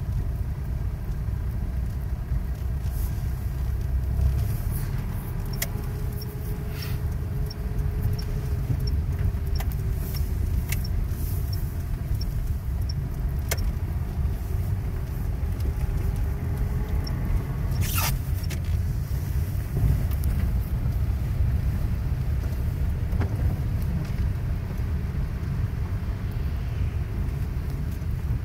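Car driving on a slushy, snowy road, heard from inside the cabin: a steady low rumble of engine and tyres. A faint regular ticking runs for several seconds in the first half, and there is a sharp click about two-thirds of the way through.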